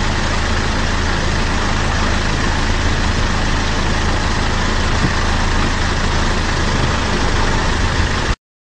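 Steady low engine-like hum under a constant hiss, cutting off abruptly near the end.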